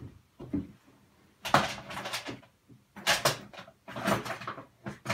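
Tools being handled on a workbench: several short clattering knocks and scrapes about a second apart.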